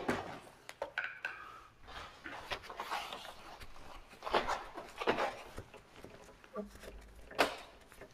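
Handling noise at a car's windscreen pillar: irregular short rustles, rubs and scrapes, the sharpest about seven and a half seconds in.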